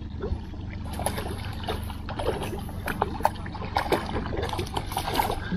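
Hooked trout splashing and thrashing at the surface beside the boat as it is brought into the landing net: a run of short, irregular splashes over a steady low hum.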